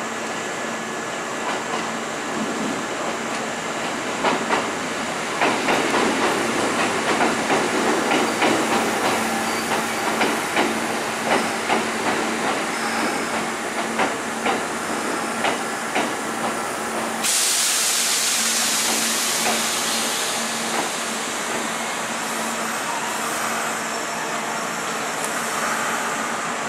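Kintetsu electric train wheels clacking steadily over rail joints, two or three knocks a second, over a steady hum. About two-thirds of the way in, a sudden loud hiss of compressed air starts and fades over a few seconds.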